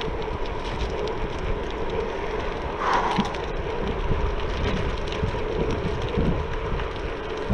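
Mid-drive electric bike rolling over cracked asphalt: wind rushing over the microphone and tyre rumble, under a steady hum. A short squeak about three seconds in.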